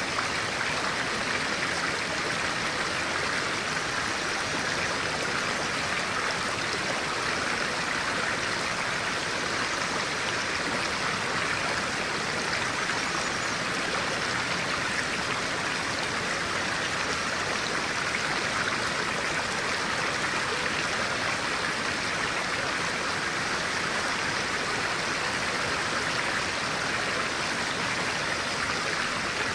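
Stream of clear water flowing with a steady, even rushing.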